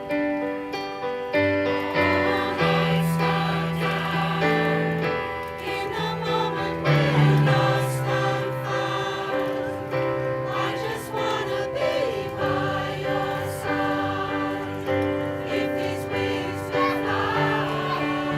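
A mixed choir singing a song over instrumental accompaniment, with sustained chords and a steady bass line underneath.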